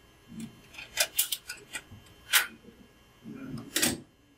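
A build tray being loaded into a Stratasys F170 3D printer: a scatter of clicks and knocks as the tray is handled into the open build chamber, with a sharp click as the printer door is shut near the end.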